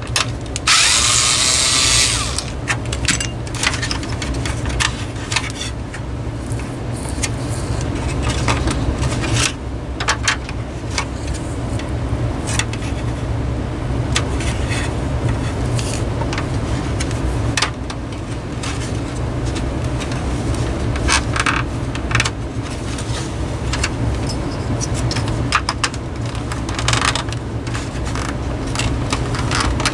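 Hands handling the plastic housing of a window fan during reassembly: scattered clicks, knocks and rattles of plastic parts and wiring, with a rasping burst about a second in, over a steady low hum.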